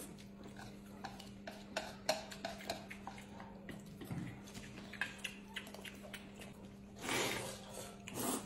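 Eating noodles with chopsticks: chewing and lip-smacking clicks, then a louder slurp of noodles about seven seconds in.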